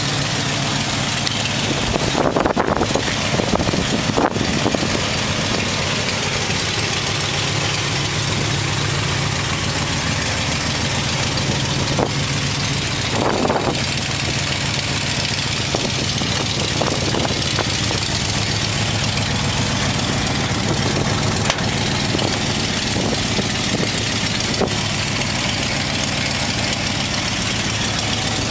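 Ford 302 V8 of a 1951 Ford F-1 pickup idling steadily.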